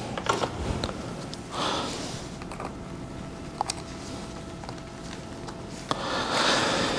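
Gloved hand working in a motorcycle fuse box: a few soft plastic clicks and rustling as a fuse is handled and refitted.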